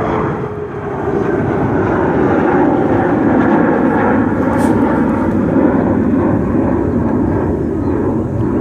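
Jet airliner's engines passing close by, the noise swelling about a second in and then holding loud and steady.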